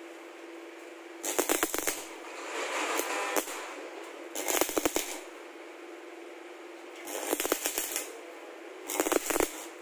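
Stick (arc) welder laying short tack welds on a steel square-tube frame: five crackling, sputtering bursts of about a second each, with gaps between them, over a steady low hum.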